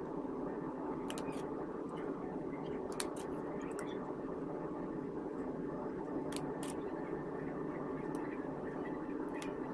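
Scattered small, sharp clicks of watchmaker's tweezers and tools against watch parts, about eight in all, over a steady background hum.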